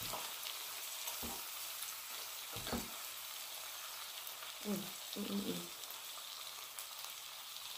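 Food sizzling steadily on a hot griddle, with a few sharp clicks of a knife and fork against the griddle plate as a ribeye steak is cut. A brief hummed vocal sound about five seconds in.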